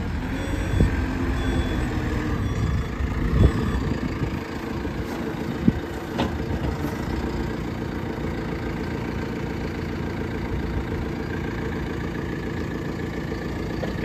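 2016 JCB 3CX backhoe loader's four-cylinder diesel engine running steadily as the machine moves and works its hoe into a sand pile. A few short knocks come through over the first half.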